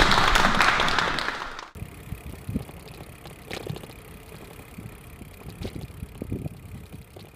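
Audience in a hall clapping and talking at the close of a meeting. It cuts off abruptly after about a second and a half, leaving faint scattered clicks and low knocks.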